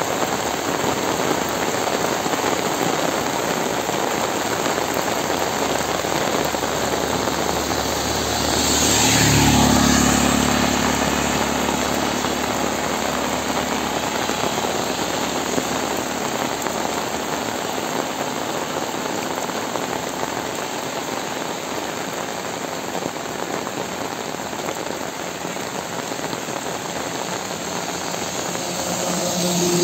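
Steady heavy rain falling. About nine seconds in, a motor vehicle passes, its engine rising and then fading over two or three seconds. Another engine starts to come in right at the end.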